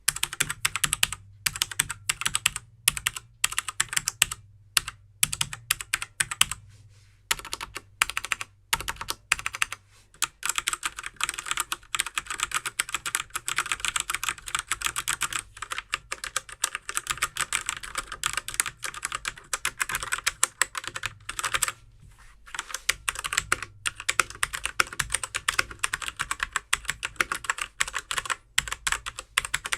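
Typing on a Machenike K500 mechanical keyboard with brown tactile switches. It starts with scattered keystrokes, settles into fast continuous typing about seven seconds in, and pauses briefly near two-thirds of the way through.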